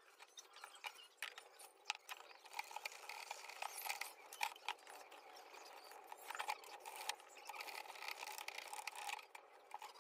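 Faint scratching and rustling, scattered with light clicks and ticks, as a toothbrush scrubs a corroded amplifier circuit board and the board is handled.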